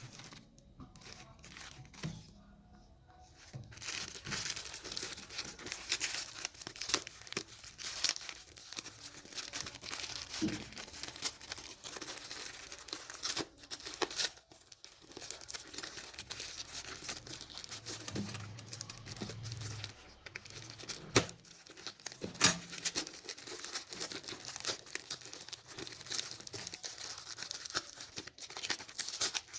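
Parcel packaging being torn open and crinkled by hand, starting a few seconds in, with two sharp clicks a little past the middle.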